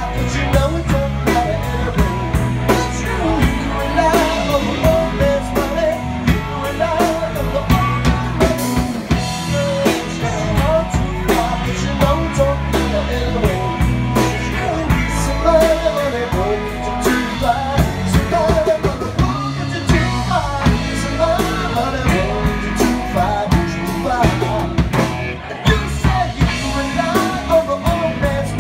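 Live pop-rock band playing a song: a drum kit keeping a steady beat under sung lead vocals and the rest of the band.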